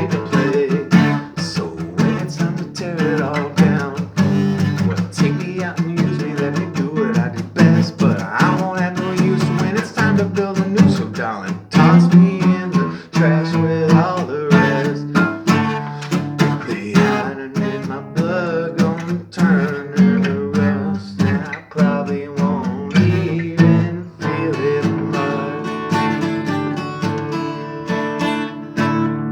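Acoustic guitar strummed in an instrumental passage of a song, with the strumming easing into softer, more sustained chords after about 24 seconds.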